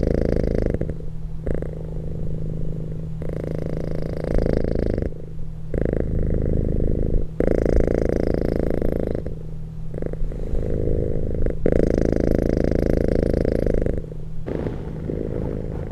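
Domestic cat purring close up, a steady low rumble that swells and eases in turns every second or two with its breathing.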